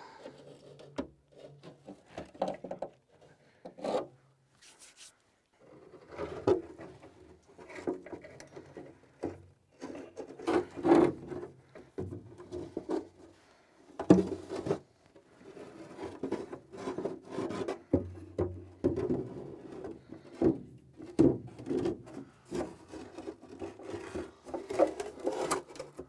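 Fiberglass control housing being slid and worked into place by hand over a backhoe's steel valve bank: irregular rubbing and scraping with scattered knocks, and a short lull about five seconds in.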